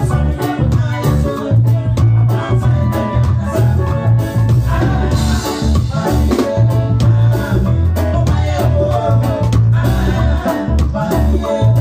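Live highlife band playing loudly through a PA: a steady beat on drum kit and hand drum over a prominent bass guitar line, with a male lead vocal.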